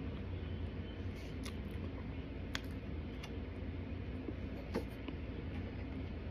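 Quiet eating sounds: a plastic spoon clicking against a clear plastic clamshell container and mouthfuls of starch being chewed. A handful of short, sharp clicks stand out over a steady low hum.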